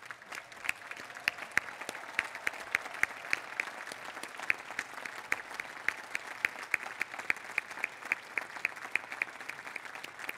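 Large crowd applauding: a steady wash of clapping with sharp single claps standing out above it.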